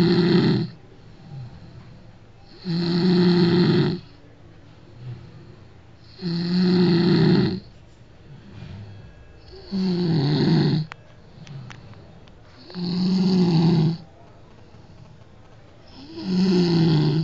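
A person snoring loudly, one long pitched snore about every three seconds, six in all, with quiet breathing gaps between.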